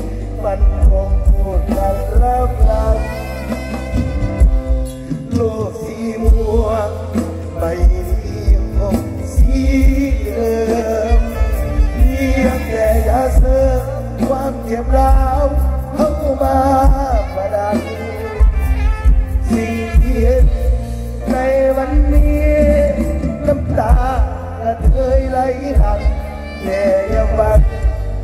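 Live mor lam music: a voice singing a wavering melody over a band with a strong, steady bass-drum beat.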